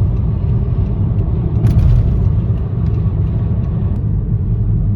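A car driving, giving a steady low rumble of engine and road noise. A single short click comes about a second and a half in.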